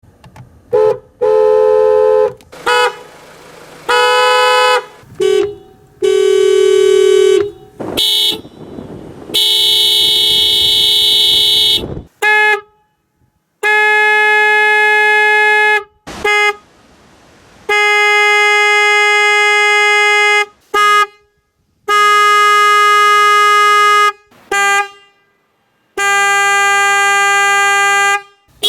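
Horns of several different Japanese cars sounded one after another: long blasts of one to two and a half seconds alternating with short toots, each horn with its own pitch and tone.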